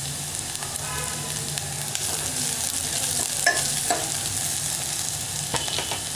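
Chopped onions, garlic and green chillies sizzling as they sauté in hot oil in a stainless-steel pot, with a metal ladle stirring and scraping against the pot; a few sharp clinks come from about three and a half seconds in.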